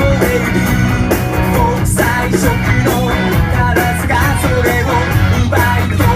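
Rock music: a band with guitar and a singer, playing loud and steady.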